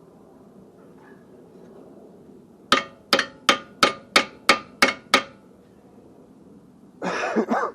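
A hammer tapping on metal brake parts, eight quick, even strikes about three a second, knocking new brake pads that will not slide onto the caliper bracket hardware into place. A short noisy burst follows near the end.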